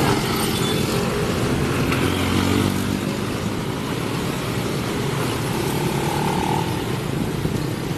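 Motorcycle and car engines passing close by in steady traffic, one motorcycle revving up about two seconds in.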